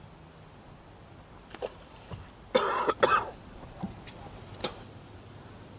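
A man coughing twice in quick succession, near the middle.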